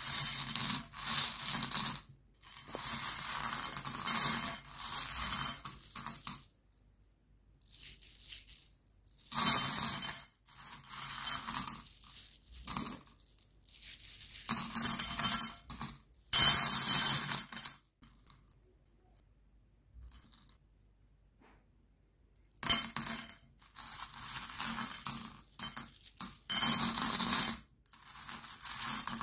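Candy-coated chocolate buttons clattering and clicking against each other and a plate as hands stir, scoop and drop them. The sound comes in bursts of a few seconds with short pauses between, and a longer quiet stretch past the middle.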